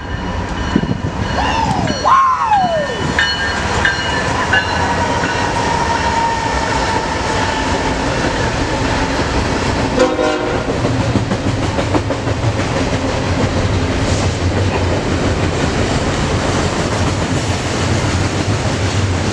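BNSF double-stack intermodal freight train passing at speed: its locomotive horn sounds in the first few seconds, its pitch falling slightly as it goes by. Then comes the steady rumble and clatter of the container cars rolling past.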